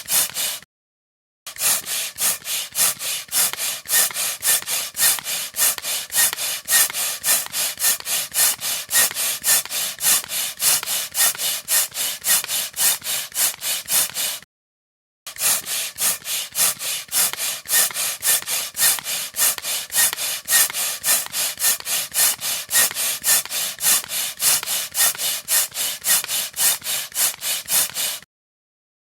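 Air pump pumping: rapid, evenly repeated hissing strokes of air. The strokes break off briefly about a second in and again about halfway through, then stop shortly before the end.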